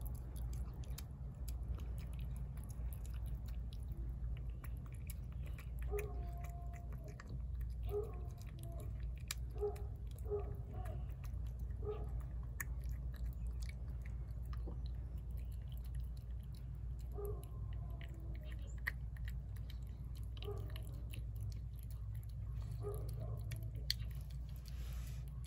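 A cat eating wet food from a plate, with wet chewing and small clicks of its mouth. Under it runs a steady low rumble, and a few short distant pitched calls come around the middle and again later.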